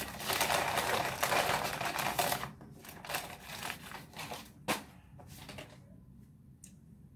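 Paper fast-food bag rustling and crinkling as it is handled, densest for the first two and a half seconds, then a few lighter crinkles and one sharp click about halfway through.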